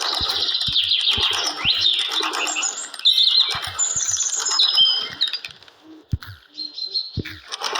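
Several small birds chirping and twittering over one another in a dense, busy chatter, with a short lull about six seconds in.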